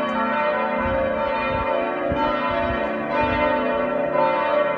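Church bells ringing in a steady, continuous peal.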